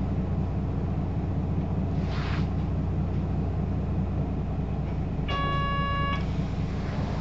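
Hino city bus with a 6-speed manual, heard from inside, running with a steady low engine drone. There is a brief hiss about two seconds in. About five seconds in, an electronic tone sounds for just under a second.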